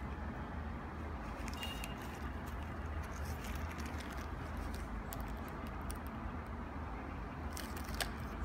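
Handling noise: a sneaker and a plastic zip bag of spare laces rustled and crinkled close to the microphone, with scattered small clicks, over a steady low background rumble.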